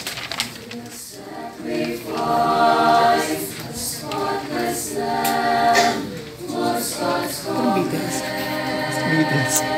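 Small choir singing a hymn a cappella in harmony. The voices come in about a second in and hold sustained chords.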